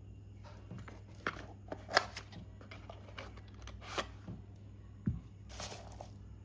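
Hands handling small electronic parts and wires on a work surface: scattered light clicks and rustles, the sharpest click about two seconds in and a low knock with a short rustle about five seconds in, over a steady low hum.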